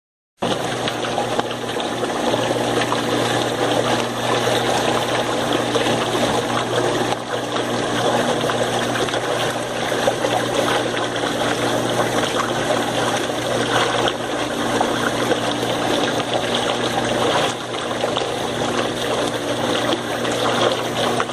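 Washing machine's water pump running with a steady motor hum under a continuous rush of water, the sound the title takes for cavitation in the pump. It starts abruptly just after the beginning and runs evenly throughout.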